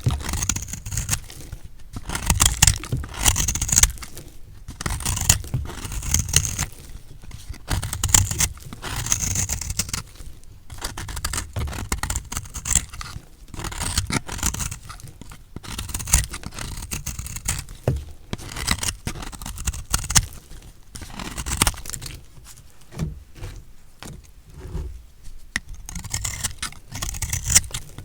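A blade cutting through recycled soap, crunchy, crisp scraping strokes repeated irregularly every second or two.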